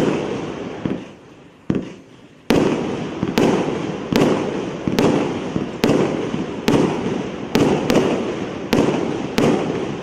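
A 1.25-inch calibre multi-shot fireworks cake firing a steady run of shells. Each one bursts with a sharp bang and a fading tail, about one every second, with a short lull about two seconds in.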